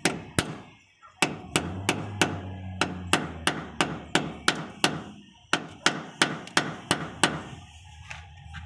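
Claw hammer tapping a cement-coated foam-core precast moulding into place: a steady run of sharp knocks, about three a second, with two short pauses, stopping near the end.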